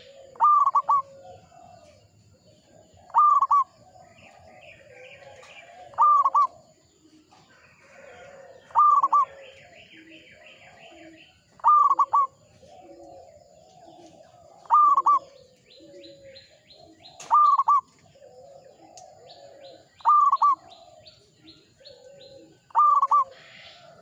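Zebra dove (perkutut) singing its cooing song over and over. A loud, clear phrase comes about every three seconds, nine times, each trailed by softer, lower coos.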